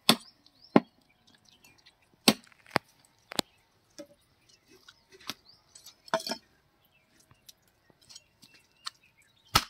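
A large curved cleaver chopping through a whole chicken into a wooden log chopping block: several sharp, irregularly spaced chops, with quieter knocks of handling in between.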